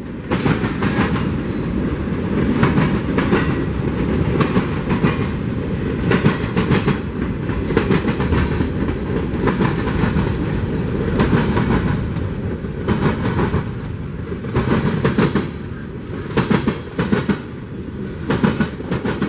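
Union Pacific freight train rolling past, its wheels clacking over rail joints in clusters of sharp clicks over a steady low rumble.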